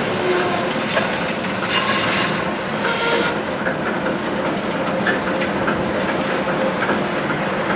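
TEM2 diesel shunting locomotive running close by, its diesel engine rumbling steadily with the wheels clicking over the rails. Short high-pitched wheel squeals come in the first half.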